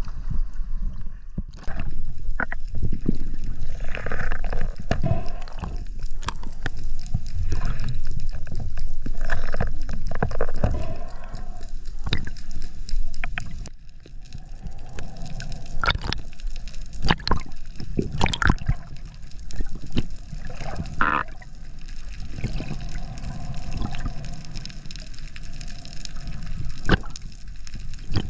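Seawater sloshing and gurgling around a waterproof action camera at the surface. About halfway through, the camera goes under and the sound turns to a muffled underwater rumble with scattered short clicks and knocks.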